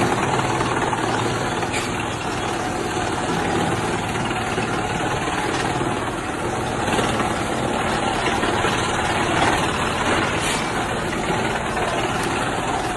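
Industrial wood chipper machine running with a steady, dense mechanical noise.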